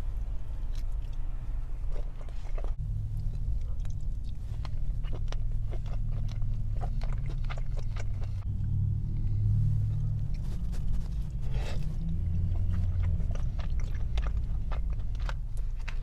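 Close-up chewing of takeout chicken and fried rice: steady irregular wet mouth clicks and smacks. A low steady rumble runs underneath.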